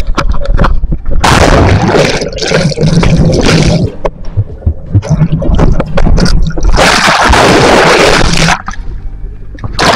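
Water splashing and gurgling close to the microphone, in two long loud stretches with rough knocks between them.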